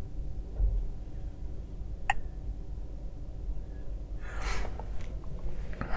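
A single short electronic beep from a truck sat nav as its touchscreen is tapped, about two seconds in, over a steady low rumble; a brief hiss follows near the end.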